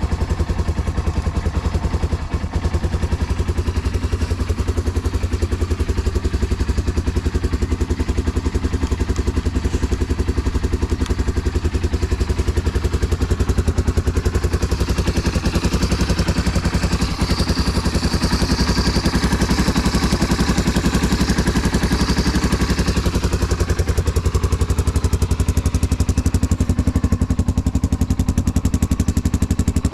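Yamaha Serow 225's air-cooled single-cylinder four-stroke engine, breathing through a Supertrapp up-swept muffler, idling steadily with an even exhaust beat. The seller calls it free of abnormal noise and in good running order.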